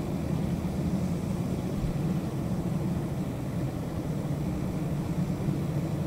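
A steady low rumble with no bird calls heard.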